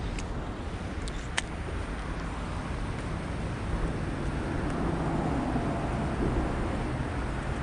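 Steady rush of water from a small river spillway, with a few sharp clicks in the first second and a half.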